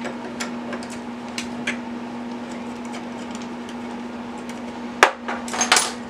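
Small flat prop wrenches and a plastic propeller being handled on a DJI FPV drone's motor, making scattered light clicks and taps as the prop nut is loosened and the propeller is lifted off. A sharper clack comes about five seconds in, followed by a short rattle of clicks. A steady low hum sits underneath.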